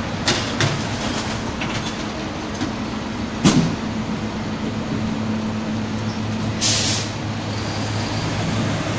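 Diesel rear-loader garbage truck running in city traffic, a steady low engine hum that strengthens about five seconds in. A few knocks near the start, a loud bang about three and a half seconds in, and a short hiss near seven seconds.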